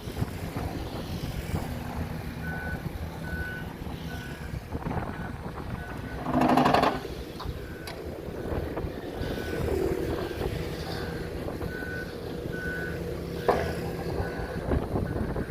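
A reversing alarm on heavy construction machinery gives short, evenly spaced beeps over a steady diesel engine rumble. A brief louder burst of noise comes about six and a half seconds in.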